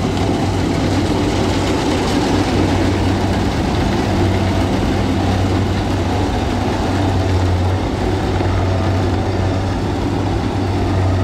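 Kubota crawler rice combine harvester running steadily as it cuts and threshes rice, a continuous engine hum with a low drone under dense machinery noise.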